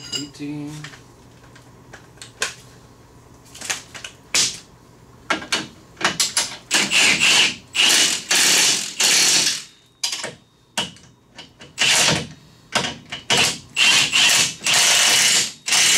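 Ratchet wrench clicking in repeated strokes, tightening 18 mm nuts on the suspension bolts at the trailing arm. The bursts start about four seconds in and come thick and fast through the rest.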